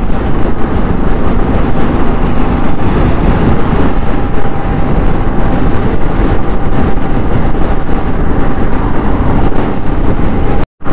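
Riding noise from a Royal Enfield motorcycle on the move: heavy wind on the microphone over engine and road noise. It cuts out briefly near the end.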